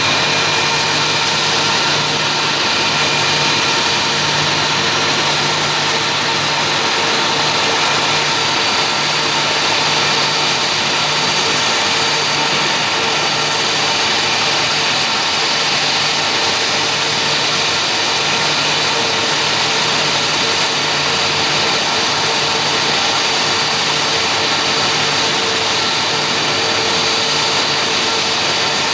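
Airbus A320 jet engines running at idle on stand: a steady rushing hiss with a constant whine, and a thin high whistle joining about nine seconds in.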